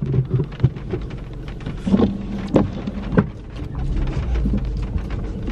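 Car engine running, heard from inside the cabin, with its low rumble swelling about four seconds in, over a steady patter of rain on the car. A few sharp clicks come about two to three seconds in.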